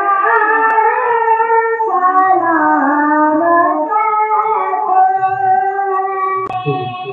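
A high, young-sounding voice singing a naat in long, bending held notes, with no instruments. A single knock comes near the end.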